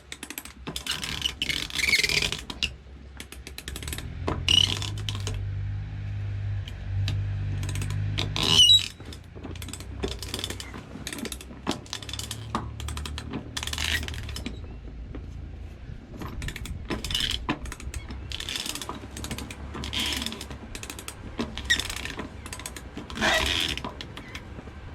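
Sailboat winch ratcheting in irregular bursts of clicks as it is cranked, hauling the genoa halyard up under load.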